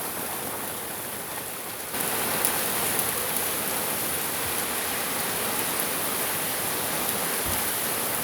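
Steady rain coming down hard, an even hiss that gets suddenly louder about two seconds in and then holds.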